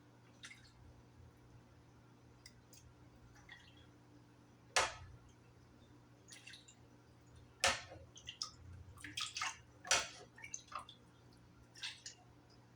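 Kitchen utensils and containers being handled: scattered short clicks and knocks, three of them louder, about five, eight and ten seconds in.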